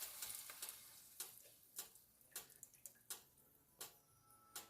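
Faint sizzling from the pot of onions and garlic dying away as the heavy cream goes in, then a handful of faint, scattered ticks and pops.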